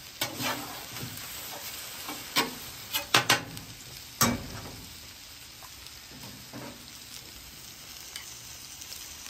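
Food sizzling steadily on a hot flat-top griddle, with a few sharp clicks and taps in the first half.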